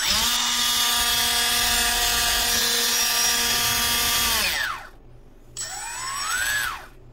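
An RC boat's small electric motor spins its two-blade brass Octura 1427 propeller in the air at full speed: a steady whine for about four and a half seconds, then it falls in pitch as the motor winds down. About a second later a short burst of throttle rises in pitch and cuts off.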